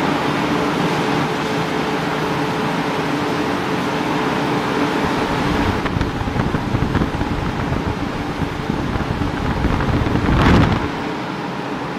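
Wire rod rolling mill machinery running at the coil cooling conveyor: a loud, continuous industrial din with a faint steady hum early on, turning rougher and more rumbling about halfway through. Near the end a brief, louder rumbling rush swells and cuts off suddenly.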